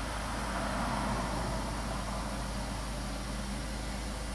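Ford Taurus/Mercury Sable V6 engine idling steadily, just after starting right up on a freshly primed fuel system with a new fuel filter. It runs smoothly.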